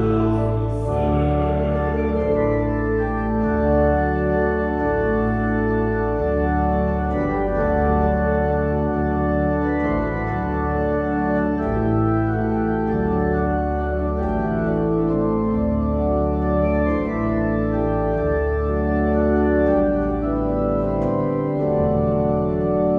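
Organ playing slow, held chords over a bass line that changes note every second or two.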